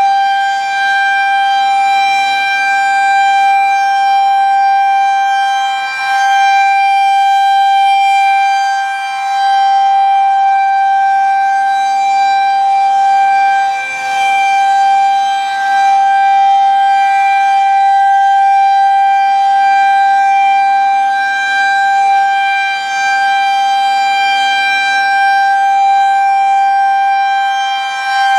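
Federal Signal 2001-130 electromechanical outdoor warning siren sounding the Alert signal during a test. It holds one loud, steady, unwavering tone, and its loudness dips briefly every several seconds as the rotating siren head turns away and back.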